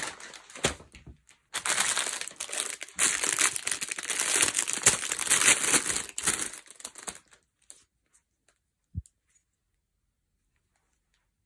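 Thin clear plastic bag crinkling and rustling as a hatchet is pulled out of it, for about six seconds. A single short low thump follows near the end.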